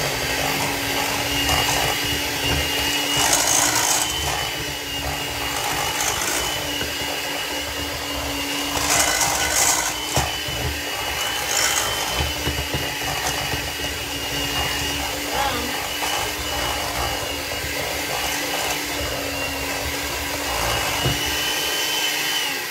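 Electric hand mixer running steadily at a constant speed, beating an egg into thick sour cream cake-donut batter in a stainless steel bowl, with a few clicks of the beaters against the bowl. It switches off abruptly at the very end.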